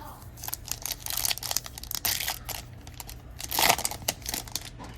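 Plastic-foil wrapper of a hockey card pack crinkling and tearing as the pack is opened by hand, a dense run of crackles with the loudest rip about three and a half seconds in.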